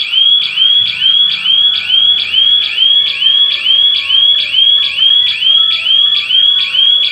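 Electronic siren of a GSM burglar alarm going off after being triggered by a detected security breach. It is a loud, shrill tone that sweeps quickly upward and repeats about three times a second.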